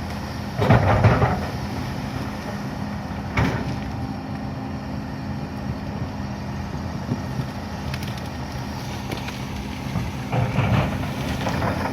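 Excavator's diesel engine running steadily with a low hum, growing louder and rougher for about a second just after the start and again near the end, with a single sharp knock a little past three seconds in.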